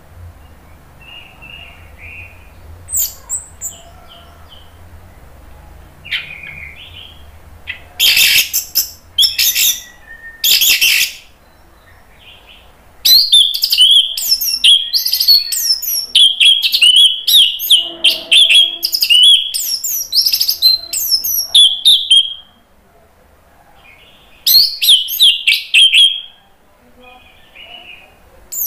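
Orange-headed thrush singing in bursts: a few soft calls at first, loud harsh notes about eight and ten seconds in, then a long run of rapid, varied high phrases from about thirteen to twenty-two seconds, and one more short burst near twenty-five seconds.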